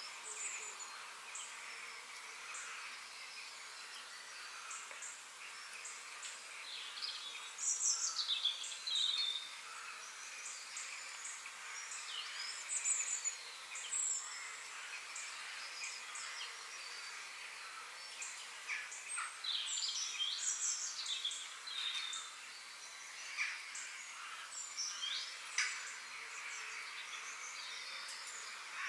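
Birds chirping in short, repeated calls over a steady high hiss, with livelier bursts of chirping several times.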